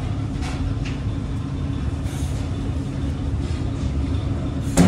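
Steady low machine rumble, with a single sharp knock just before the end.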